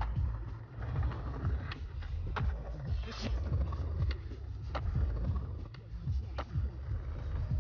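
Skateboard wheels rolling on concrete, a steady low rumble, with a string of sharp clacks from the board popping, hitting ledges and landing on tricks.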